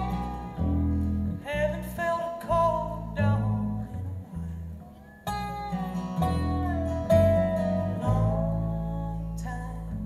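Live acoustic string-band music: acoustic guitars picked and strummed over a plucked upright double bass, with a singing voice carrying the melody. The playing drops away briefly about halfway through, then picks up again.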